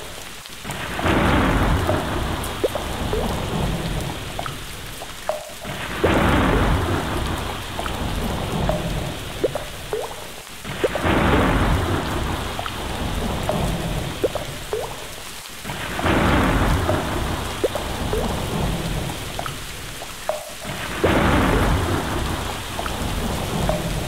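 Steady rain with rumbling thunder and scattered drop plinks. The same swell of rain and rumble comes back about every five seconds, each one after a brief dip: a short stretch of storm recording played on a loop.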